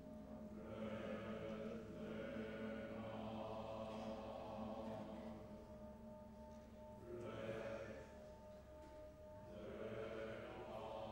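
Mixed choir of men and women singing softly in sustained chords, swelling louder in a few phrases.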